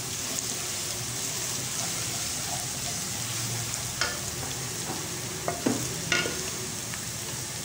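Sliced onions with garlic and ginger paste sizzling in oil in a kadhai, stirred with a wooden spatula. The spatula knocks against the pan a few times in the second half.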